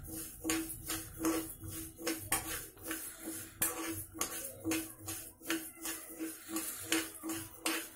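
Spoon stirring split moong dal being dry-roasted in a stainless steel frying pan: the dry lentils rattle and scrape against the pan about twice a second.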